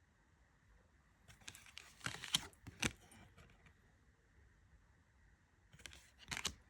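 Tarot cards being handled: a few quick clicks and slaps of the card stock in two short clusters, about a second in and again near the end.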